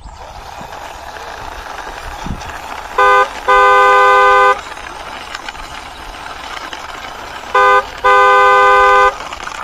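A vehicle horn honking in two short-then-long pairs, 'beep, beeeep', a few seconds apart, loud and steady in pitch, over a steady rushing noise as a toy truck is pushed along.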